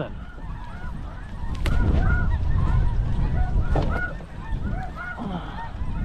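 A chorus of snow geese calling: many short, overlapping honks throughout. Strong wind rumbles on the microphone underneath and swells about a second and a half in.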